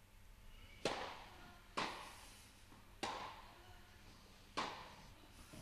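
A tennis ball struck by rackets four times in a serve-and-rally exchange, each hit sharp and echoing in an indoor tennis hall.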